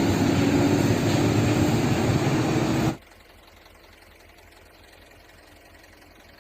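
Truck engine sound running steadily with a low hum, cutting off abruptly about three seconds in and leaving only a faint hiss.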